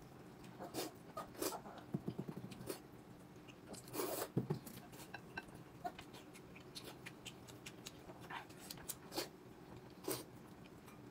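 Quiet eating at a table: mouth noises of biting and chewing, with scattered light clicks and taps from utensils and dishes.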